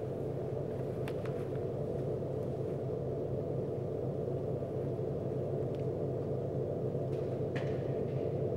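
A steady low rumbling drone, with a few faint clicks about a second in and again near the end.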